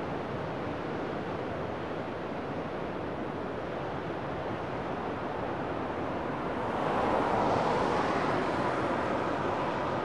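Ocean surf washing over rocky ledges in a steady rush, swelling louder as a bigger wave breaks about seven seconds in.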